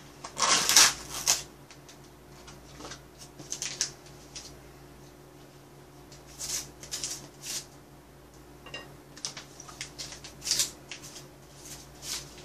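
A small plastic packet being opened and its wrapping handled: short crinkling rustles, loudest in the first second and a half, then scattered softer ones.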